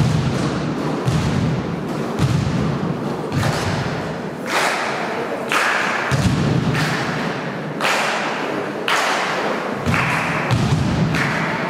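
A group of basketballs bounced together on a wooden gym floor, landing in near-unison about once a second as a dull thud with a sharp slap, each echoing through the hall.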